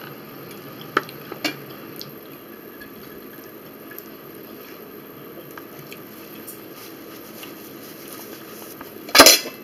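Close-miked eating sounds: faint wet chewing and mouth clicks, with two sharp clicks about a second in. Near the end comes one short, loud sharp noise.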